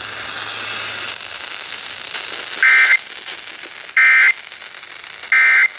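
Radio static hiss, then three short Emergency Alert System (SAME) end-of-message data bursts, buzzy chirps about 1.3 seconds apart, signalling the end of the flood warning broadcast.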